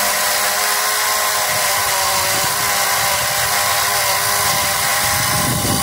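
Small Chinese electric mini chainsaw running steadily, its chain cutting into a thick ivy stem, with a constant motor whine.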